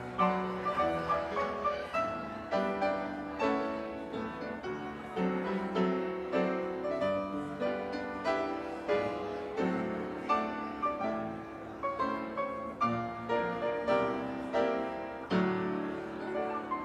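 Piano playing a church postlude: a steady, even-paced run of struck chords and melody notes.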